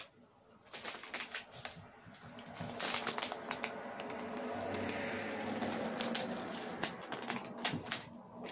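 Scissors snipping through a plastic fruit-snack bag, with a quick run of sharp clicks and crinkling of the packaging, starting about a second in.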